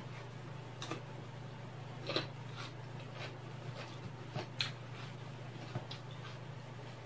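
Close-miked chewing: irregular wet mouth clicks and smacks, about eight or nine of them, over a steady low hum.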